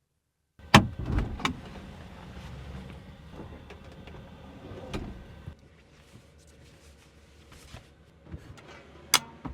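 Latch clicks and a door sliding on the 1985 Volkswagen Vanagon camper: a sharp loud click about a second in, a second click, then a rolling rumble for several seconds, with quieter handling noises and another sharp click near the end.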